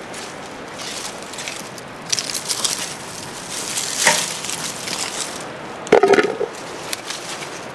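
Cucumber vines and leaves rustling and crackling as cucumbers are picked by hand, with cucumbers dropped into an aluminium bowl: a short ringing clunk about four seconds in and a louder one with a metallic ring about six seconds in.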